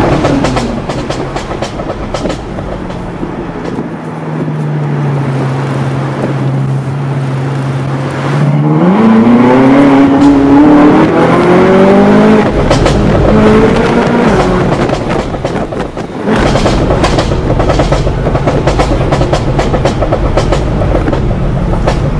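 Ferrari California V8 through an Armytrix titanium exhaust with its valves open, heard from inside the cabin. The engine note falls and holds steady, then climbs steeply under acceleration through two gears. It drops off into a rapid run of pops and crackles on the overrun from the crackle remap.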